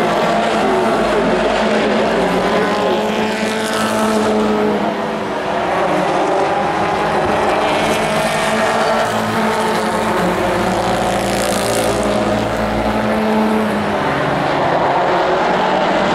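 Pro4 racing trucks' engines running at high revs on a paved short oval. Several engines are heard at once, their pitch rising and falling, with trucks sweeping past about three times.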